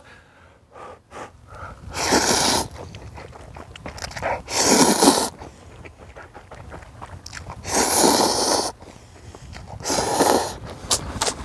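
A person slurping spicy instant ramen noodles: four long slurps, one every two to three seconds, with quieter chewing between them.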